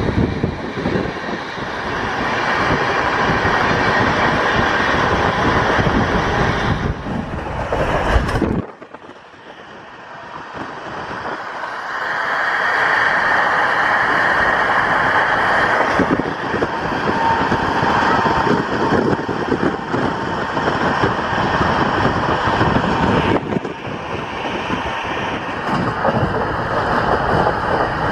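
Running noise heard from aboard an express passenger train: a steady rumble and rush of wheels on the track. About a third of the way in it drops off suddenly, then builds back up over a few seconds.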